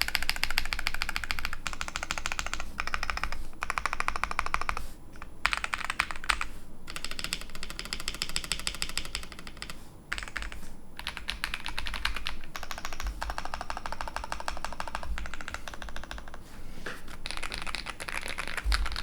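Typing on a mechanical keyboard fitted with Akko V3 Cream Yellow linear switches (polycarbonate housings, POM stems): fast runs of keystrokes broken by several short pauses.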